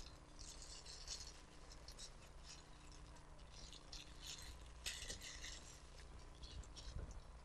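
Faint crinkling of thin clear plastic disposable gloves being handled and pulled on, in scattered short rustles, heaviest about a second in and again around four to five seconds in.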